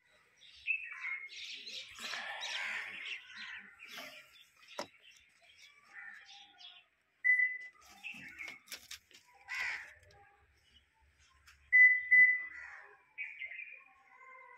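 Short electronic beeps at one steady pitch during smart-key registration: a brief one about seven seconds in, then a louder one about twelve seconds in and another just after.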